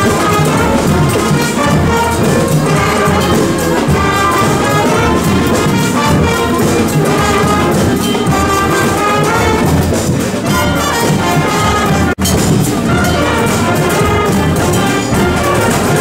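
Community street brass band playing a tune together: saxophones, trumpets, trombones and a large bass horn. The sound cuts out for an instant about twelve seconds in, then the horns carry on.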